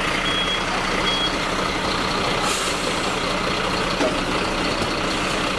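Heavy fire truck running steadily, with a low hum under a loud, even rush of noise. A warning beeper sounds twice near the start and then stops, and a short hiss of air comes about halfway through.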